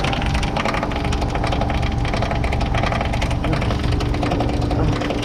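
2022 Bryant Legacy Line heat pump outdoor unit running in heat mode: a steady hum with a constant tone and a rapid, continuous rattling clatter as the iced-up unit shakes, typical of an ice chunk probably caught in the fan blade.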